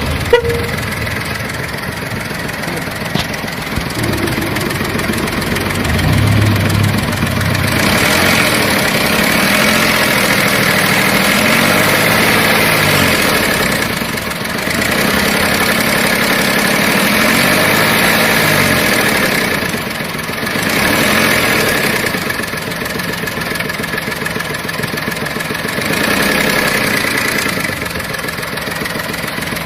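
Volkswagen Polo 7's engine idling and being revved up and let fall back several times, the pitch rising and dropping each time. The engine noise is what is being checked.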